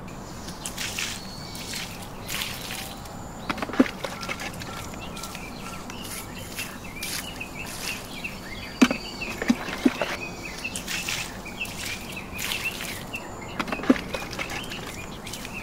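Outdoor ambience of birds chirping in short repeated calls, with a few sharp knocks or clicks now and then.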